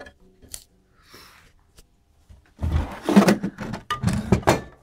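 Opened bench multimeter's metal chassis being handled and turned over: a few faint clicks, then from about halfway in a couple of seconds of loud knocking and scraping that stops just before the end.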